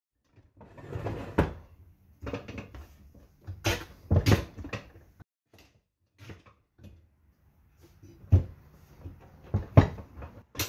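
Irregular knocks, clunks and rubbing as a motorcycle front tire and wheel are handled on a manual tire changer, with the sharpest knocks about a second and a half in, around four seconds, and twice near the end.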